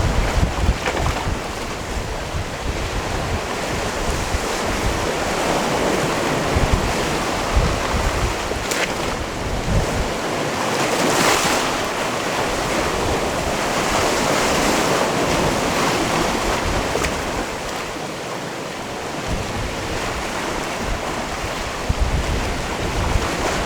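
Sea waves washing onto a rocky shore: a continuous surf wash that swells louder about eleven seconds in and again a few seconds later. Gusts of wind buffet the microphone as a low rumble under the waves.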